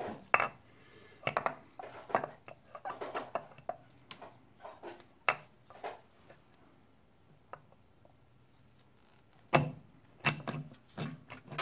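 Light metallic clinks, taps and scrapes as an aluminium cylinder head is worked down over its studs onto a two-stroke cylinder. A couple of sharper knocks come near the end.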